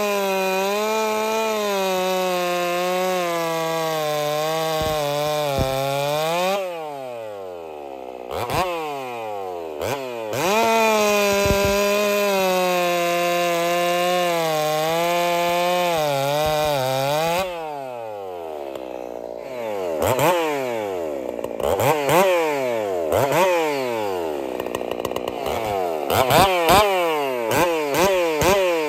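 Two-stroke chainsaw cutting through a log at full throttle, its pitch sagging slightly under load through two cuts of about six to seven seconds each and dropping toward idle after each. In the last third the throttle is blipped over and over, the pitch rising and falling quickly.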